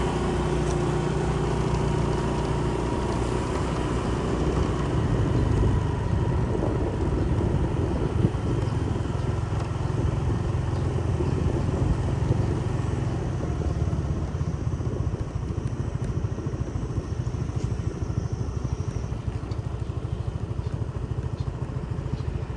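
Motorbike engine running steadily while riding, with road and air noise.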